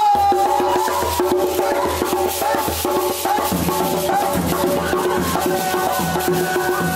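Background music with a steady percussive beat and a melody line.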